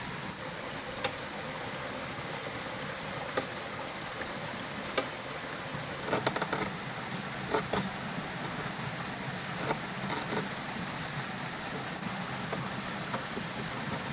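Knife cutting a hole in a green bamboo pole: scattered sharp cuts and taps of the blade on the bamboo, with a quick run of them about six seconds in, over a steady rushing background.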